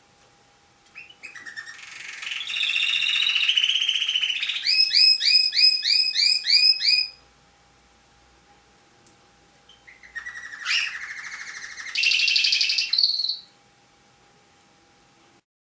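Domestic canary singing in two bouts. The first is a long song of fast rolling trills that ends in a run of repeated sweeping notes, about four a second. After a pause of a few seconds comes a shorter trilled phrase.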